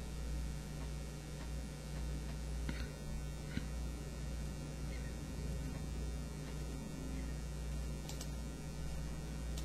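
Steady low electrical mains hum picked up by the recording, with a few faint clicks.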